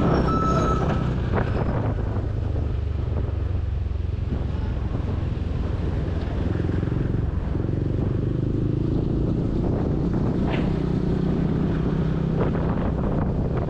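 Yamaha motor scooter's engine running steadily while under way, with wind rushing over the microphone.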